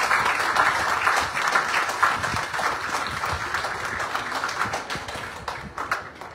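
Audience applauding, the clapping slowly dying away and thinning to a few scattered claps near the end.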